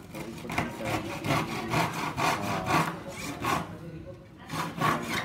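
Short handsaw cutting through a plywood sheet in quick back-and-forth strokes, about three a second, with a brief pause about three and a half seconds in before the strokes resume.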